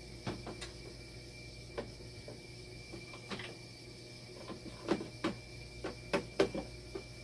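Scattered sharp clicks and light knocks, a cluster of the loudest about five to six and a half seconds in, over a steady electrical hum and a thin high steady tone.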